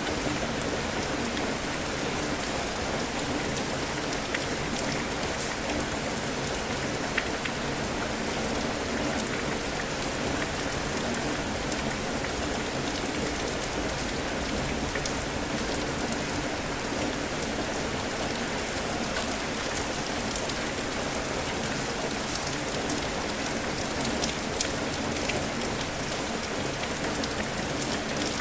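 Steady rain falling on a surface, an even hiss with many small drop ticks all through.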